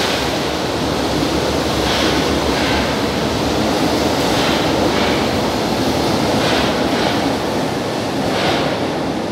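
São Paulo Metro Line 1-Blue train running through the tunnel by the station: a loud, steady rumble, with a soft hiss swelling about every two seconds.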